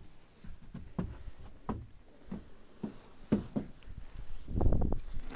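Footsteps, a thump about every half second, as a person walks out of a portable toilet. A louder cluster of knocks and rattles comes near the end.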